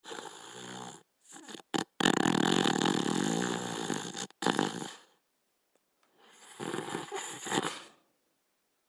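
Border collie snoring in its sleep: three or four snoring breaths, separated by short silences. The longest and loudest starts about two seconds in and lasts nearly three seconds.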